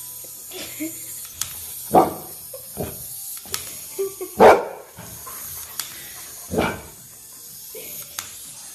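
Large white retriever-type dog giving several short play barks at a small toy, the loudest about halfway through, over a steady background hiss.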